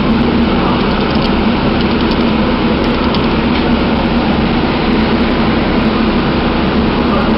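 Staten Island Railway train running along the line, heard from inside the car: a steady rumble and hum of wheels and motors.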